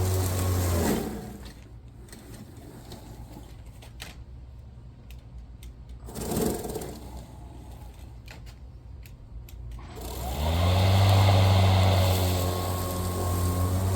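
Greenworks Pro cordless electric lawnmower's motor and blade running with a steady hum, then spinning down about a second in. A few light clicks follow, and about ten seconds in the motor starts again and spins back up to speed.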